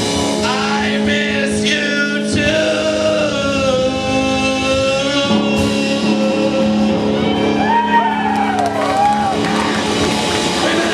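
Live rock band playing with a wordless sung vocal: one long held note a few seconds in, then short rising-and-falling vocal slides near the end, over steady guitar and a held low note.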